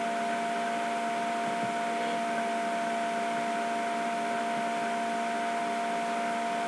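Steady background hiss with a constant electrical hum made of several fixed tones, the highest and loudest a thin whine; no distinct events.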